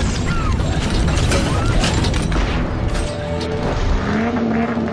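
Mechanical clicking and ratcheting sound effects with low booms, as in a cinematic car-reveal animation, over background music.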